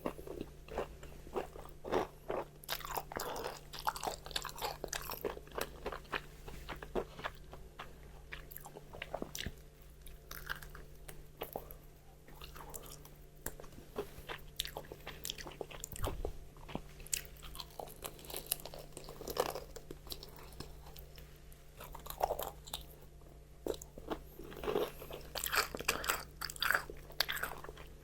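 Crispy fried chicken being bitten and chewed: close crackling crunches of the fried crust, densest in bursts near the start and again near the end, with sparser chewing crunches in between.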